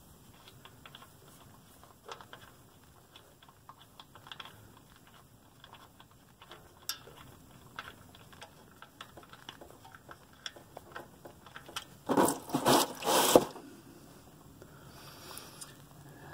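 Faint scattered clicks and rubbing of a gloved hand turning out a steel oil drain plug on a truck's oil pan. About twelve seconds in come a few louder rustling bursts.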